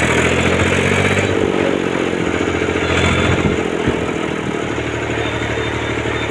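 Ursus 3512 tractor's three-cylinder diesel engine running steadily while driving along in fourth gear, heard from the driver's seat.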